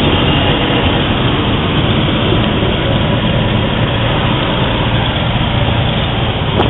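Light single-engine propeller airplane's engine and propeller running at a loud, steady level, heard from inside the cockpit.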